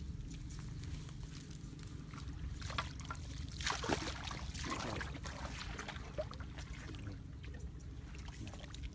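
Muddy water trickling and sloshing, busiest about four seconds in, over a steady low hum.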